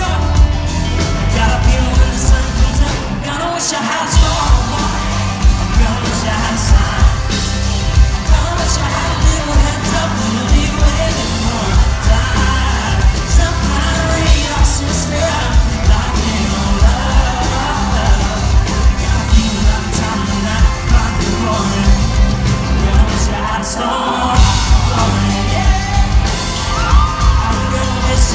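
Loud live pop-rock band: a male lead singer over electric guitars and a steady pounding drum beat. The low end drops out briefly twice, about four seconds in and again near the end.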